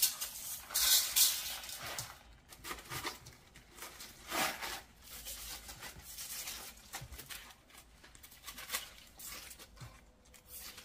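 Coarse sea salt pattering onto napa cabbage leaves in a steel bowl about a second in, then the crisp leaves rustling and crackling in short bursts as they are handled and cut.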